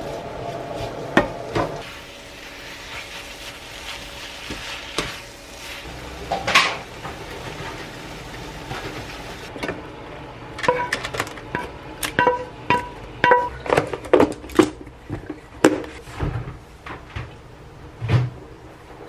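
Pork, bean-sprout and kimchi stir-fry sizzling in a nonstick frying pan as it is stirred with a spatula, with a few knocks of the spatula on the pan. About nine seconds in the sizzle stops, and a run of sharp knocks and taps with a short ring follows as the food is scooped out into a plastic container.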